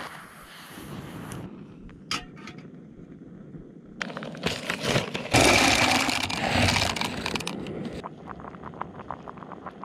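Hands at work on camp cooking with a backpacking gas stove: a few sharp metal clicks while the stove is handled, then a plastic food packet torn open and crinkled, followed by louder clattering and rustling.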